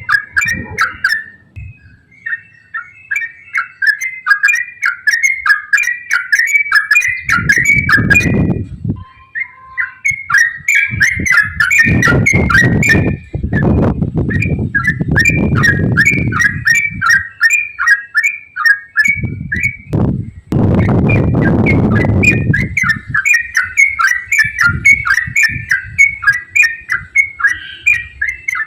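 Yellow-vented bulbul (trucukan) singing a long, almost unbroken run of quick, short chirpy notes, several a second. A low rumbling noise comes and goes three times in the middle.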